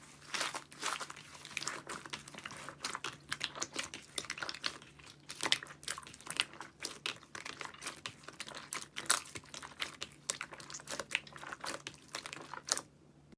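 Slime being squished and kneaded by hand, giving a dense, irregular run of crackles and pops. It cuts off suddenly at the end.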